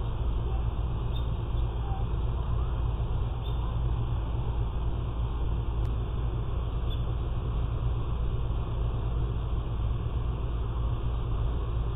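Steady low rumble with a hiss above it, unchanging throughout, with no distinct events: outdoor background noise picked up by a security camera's microphone.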